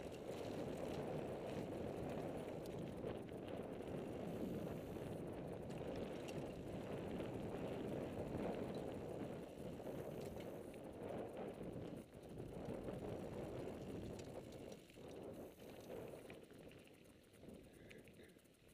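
Mountain bike (a Turner RFX) riding a dirt singletrack: steady crunch of knobby tyres on gravelly ground, with small clicks and rattles from the bike, growing quieter near the end.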